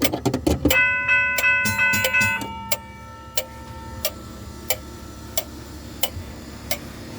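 Electromechanical railroad crossing signal bell struck in quick succession, its ringing dying away over about three seconds. Steady clicking follows, about three clicks every two seconds.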